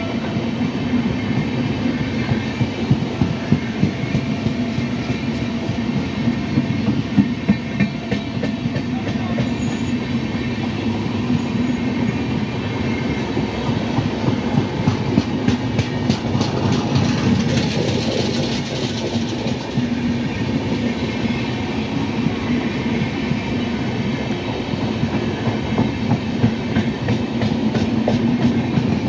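A rake of LHB passenger coaches rolling past close by: a steady rumble of wheels on rail with rapid clickety-clack as the bogies cross rail joints, clicks densest about halfway through.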